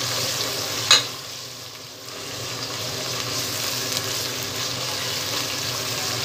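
Ginger-garlic paste, onions and green chillies sizzling in hot oil as they are stirred and fried with a steel spoon in a pan. About a second in, the spoon clinks once sharply against the pan, and the sizzle quietens for a moment before picking back up.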